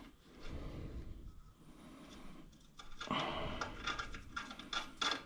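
Hand work on a lawn tractor's engine parts: low rustling and scraping, then from about three seconds in a run of light metallic clicks and rattles, like bolts and hand tools being handled.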